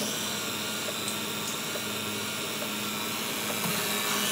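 CrunchiCreme candy-mixing soft-serve machine running while it dispenses soft serve into a cup: a steady, even mechanical hiss with a low hum beneath.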